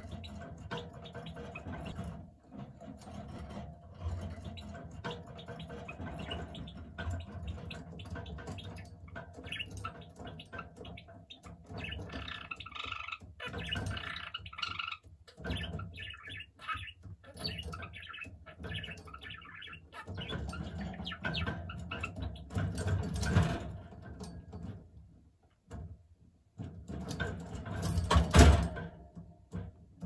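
Budgerigar warbling and chattering in a long, irregular run of short chirps and squawks, with a louder burst near the end.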